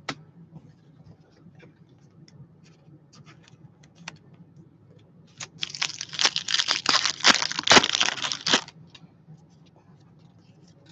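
Trading-card pack wrapper being torn open and crinkled for about three seconds midway, with light clicks of cards being handled before it.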